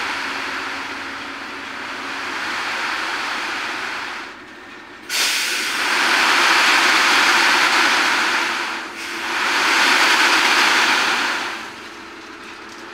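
Tipper semi-trailer dumping its load off the raised bed, with the truck's engine running under a loud rushing hiss of the material sliding out. The rush breaks off briefly, returns suddenly about five seconds in, comes in two long surges and dies down near the end.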